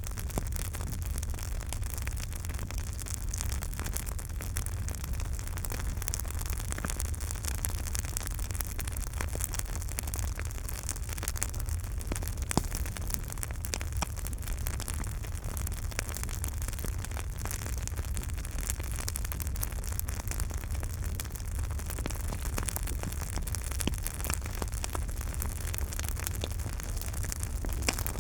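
Campfire burning: a steady low rumble and hiss of flames with frequent small crackles and pops of the wood, one sharper pop about twelve seconds in.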